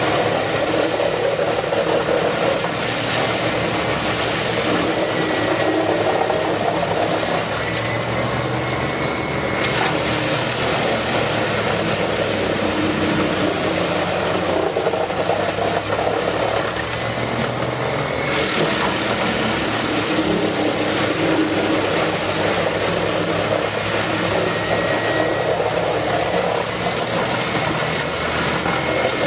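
Wood chipper's engine running steadily, a continuous machine drone with no clear chipping bangs.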